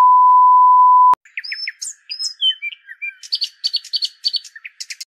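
A steady 1 kHz test tone, the kind played over colour bars, cuts off with a click about a second in. Birds chirping follow, with short gliding calls and quick runs of repeated notes.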